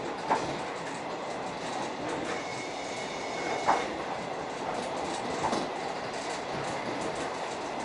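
Suburban electric train (elektrichka) running along the line: a steady rolling noise with a few sharp wheel clicks over rail joints. A thin high squeal lasts about a second and a half near the middle.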